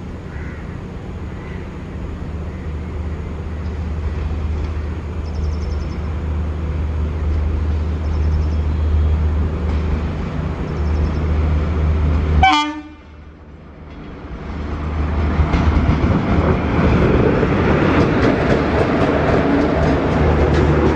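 WAP4 electric locomotive hauling an LHB passenger train. A steady low hum runs for the first dozen seconds and ends in a brief horn toot. After a short quiet gap, the louder rumble of the running train builds and holds.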